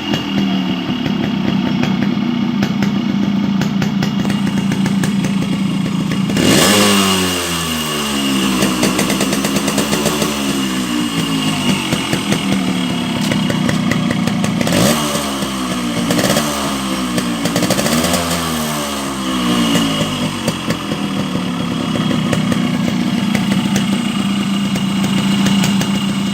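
Yamaha RX135's two-stroke single-cylinder engine running steadily at idle, with the throttle blipped so the pitch rises and falls: once about six seconds in, then several quick revs about halfway through.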